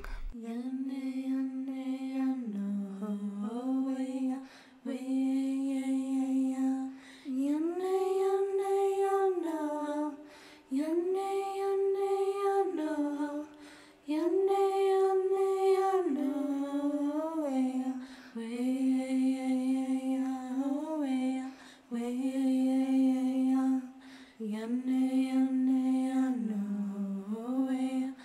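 A woman singing unaccompanied: a slow song of long held notes, sung in phrases of a few seconds with short breaks for breath between them.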